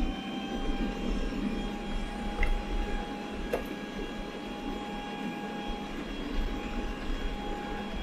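Robot vacuum running across a tiled floor: a steady high motor whine from its fan over a constant whooshing hiss and a lower hum from the brushes and drive. A single short click about three and a half seconds in.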